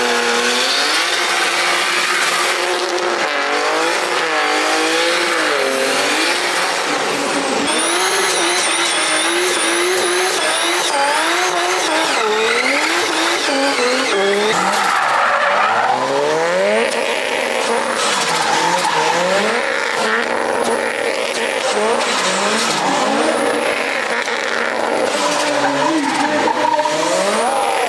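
Drift cars' engines revving hard and dropping back again and again, with the tyres squealing as they slide sideways.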